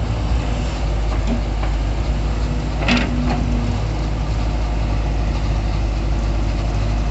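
Crawler excavator's diesel engine running steadily with a deep hum as the machine digs into sand. One short sharp knock comes about three seconds in.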